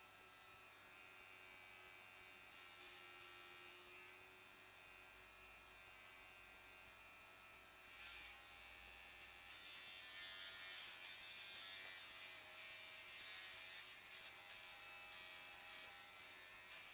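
Electric tattoo machine buzzing steadily, faint, with its pitch shifting and getting louder about eight seconds in.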